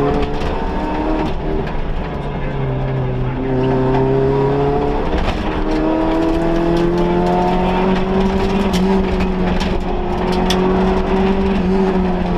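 Vauxhall Nova rally car's engine heard from inside the cabin, pulling hard at high, steady revs. Its pitch breaks and shifts at gear changes about two seconds in and again around five to six seconds in. A scatter of short sharp ticks runs over it.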